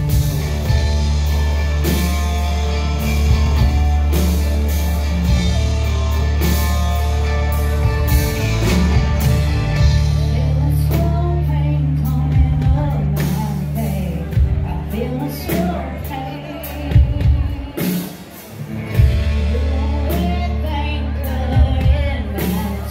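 Live country-rock band playing electric guitars and drums, with a woman singing lead over them partway through.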